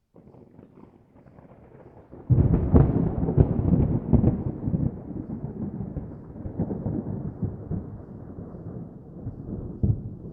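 Distant thunder: a faint low rumble, then a loud crackling roll breaks about two seconds in and slowly rumbles away.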